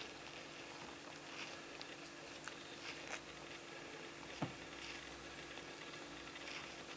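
Faint soft clicks and small wet rustles from a mother cat and her newborn kittens, over a steady low hum, with one sharper click about four and a half seconds in.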